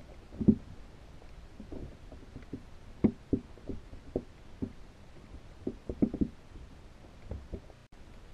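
Irregular muffled knocks and taps heard underwater through a GoPro's housing inside a pinfish trap. Some come singly and some in quick clusters.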